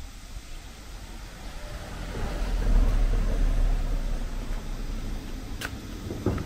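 A small car driving past on the street, its engine and tyre noise swelling to a peak about three seconds in and then fading. A sharp click and a couple of short knocks near the end.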